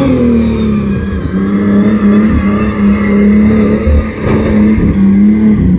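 Modified tuff truck's engine running hard at high revs with a steady, wavering note. The note dips slightly about a second and a half in and falls off at the very end.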